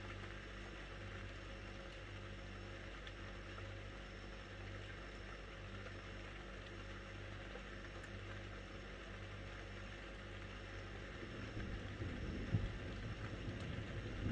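A steady low mechanical hum. Near the end an uneven low rumble joins it, with one sharp bump.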